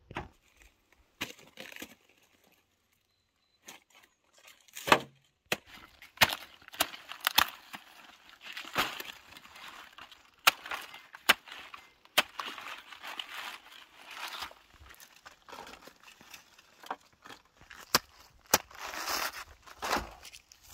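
Cleaver chopping and trimming cabbage heads, with crisp crunching, snapping and tearing of the leaves in irregular sharp strokes, starting about five seconds in.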